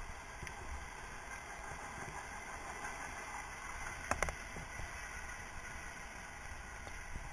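Mountain bike rolling fast over a dirt trail: steady tyre and frame rumble with wind on the microphone, and a sharp double clack about four seconds in.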